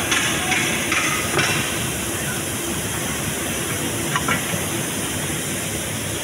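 Steady hissing workshop background noise, with a few light clicks in the first second and a half and another about four seconds in.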